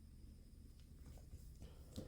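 Near silence: faint room hum, with a few faint clicks in the second half.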